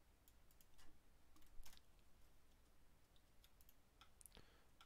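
Near silence broken by several faint, scattered clicks from a computer mouse and keyboard.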